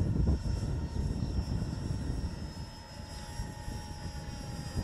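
Electric ducted fan of a 3D-printed RC jet model giving a steady high whine in flight. Wind buffets the microphone with a low rumble, heaviest in the first second.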